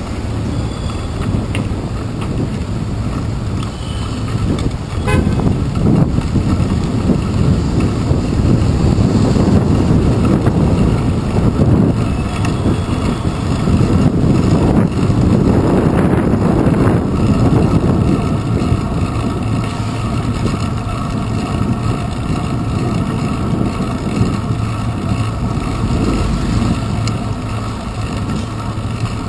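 City street traffic heard from a moving bicycle: a steady low rumble of cars and trucks with wind on the handlebar camera's microphone, louder through the middle stretch. A short car horn toot sounds about five seconds in.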